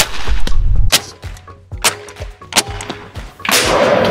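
Background music with sharp percussive hits about once a second and a longer noisy crash near the end.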